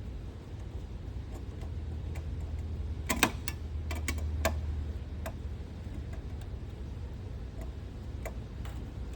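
Scattered sharp clicks and taps of electrical hardware and tools being handled during switch wiring, loudest in a quick pair about three seconds in, over a low steady hum.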